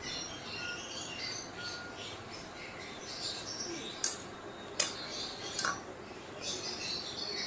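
Three sharp clinks, a little under a second apart midway through, as a small ceramic bowl knocks against a mixing bowl, over faint bird chirping in the background.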